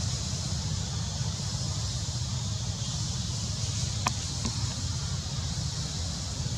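Steady outdoor background noise: a low rumble of wind on the microphone under a constant high hiss, with a short tick about four seconds in. No monkey calls.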